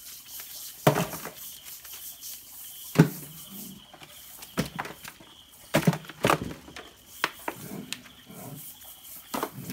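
Hands rummaging through a heap of freshly caught prawns and leaves: rustling, with several sharp clatters and knocks at irregular intervals.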